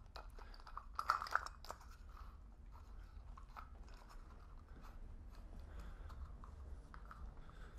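Quiet clicks and scrapes of an IKEA Not lamp's light-bulb housing being screwed back onto its threaded nut by hand, loudest about a second in, then faint scattered ticks and rustling.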